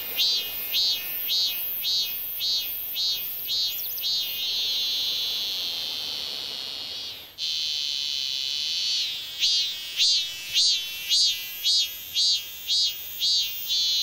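A cicada singing: a high, pulsing call, nearly two pulses a second, that runs together into a long steady buzz midway, breaks off for a moment about seven seconds in, then resumes and pulses again.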